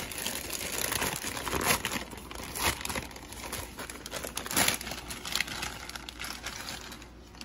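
Plastic poly mailer bag being ripped open and handled, in irregular bursts of crinkling and rustling.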